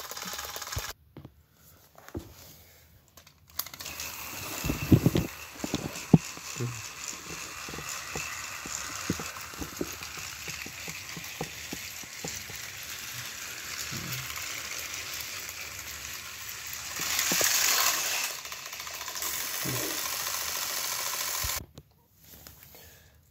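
Battery-powered Thomas & Friends toy trains running along plastic track: a steady whirring rattle, with a few sharp clicks about five to six seconds in. The sound cuts out briefly near the start and again near the end.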